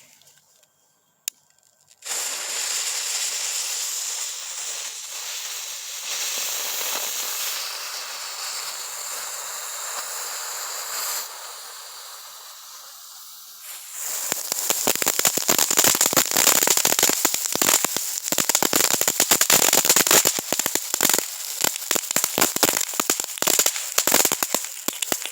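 Novelty army-tank firework going off: a steady spraying hiss of sparks starts about two seconds in and dies down, then a long run of rapid crackling pops starts about halfway through. The firework works rather than being a dud.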